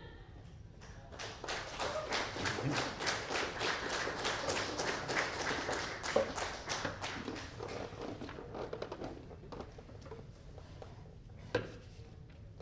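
A small audience applauding: clapping starts about a second in, is strongest for a few seconds, then thins out and dies away. A single sharp knock near the end.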